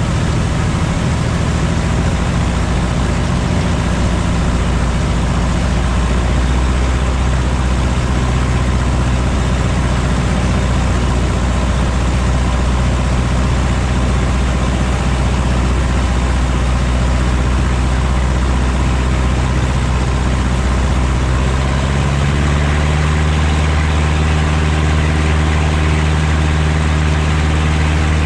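Cub light aircraft's piston engine and propeller running steadily, heard inside the cockpit with wind noise. A little over 20 seconds in, the engine note steps up to a higher pitch as power is added.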